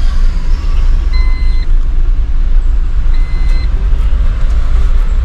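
Van's engine and road rumble heard from inside the cabin as it rolls slowly into a toll lane, with two identical short electronic beeps about two seconds apart.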